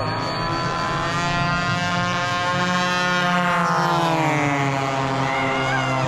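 Propeller-driven radio-control warbird model flying past, its engine note dropping in pitch as it goes by about three seconds in, with other model planes running steadily underneath.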